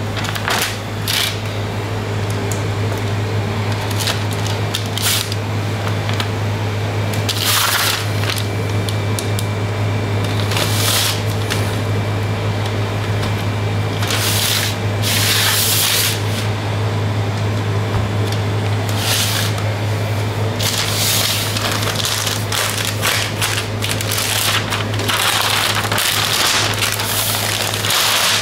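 Paper and plastic wrappers of plates of tourage butter crinkling and rustling in repeated bursts as the plates are lifted and unwrapped. A steady low machine hum runs underneath.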